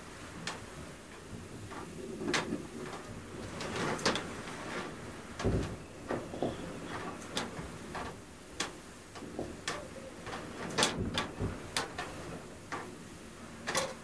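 Blizzard wind heard from inside a house, with window shutters banging irregularly, a dozen or more sharp knocks of varying loudness over the steady hiss of the storm.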